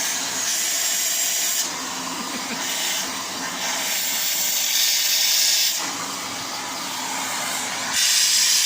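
Vacuum cleaner running with a steady rushing hiss of suction. The hiss grows brighter and louder for a couple of seconds at a time, three times, as the nozzle's airflow changes.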